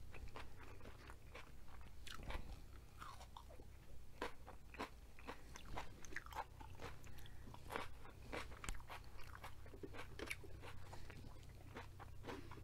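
Crunching and chewing of raw yellow bell pepper strips, with many short, sharp crunches at an uneven pace.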